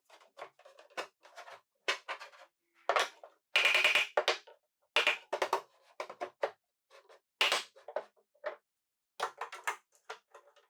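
Plywood shelf bumping and scraping against the wooden workbench frame as it is set into place: a string of short irregular knocks, with a longer scrape about four seconds in and another at about five seconds.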